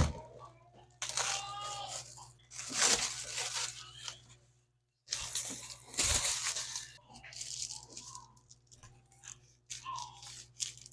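Bouts of scratchy crackling and tearing noise from hands working on phone parts during a screen replacement, three louder bouts and smaller ones after, with a brief dropout to silence about four seconds in.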